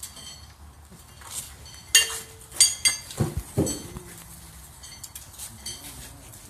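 Steel pitching horseshoes clinking against one another as players gather and carry them, a handful of sharp metallic clinks with a brief ring, the loudest about two seconds in.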